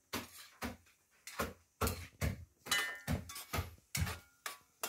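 A cooking utensil scraping and knocking against a steel wok as stir-fried vegetables are tossed, in a steady run of strokes about two or three a second.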